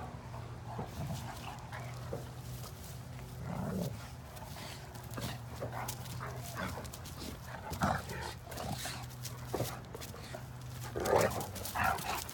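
Great Danes, an adult and a five-month-old puppy, wrestling in play, with short scattered dog vocalisations. The loudest cluster comes near the end.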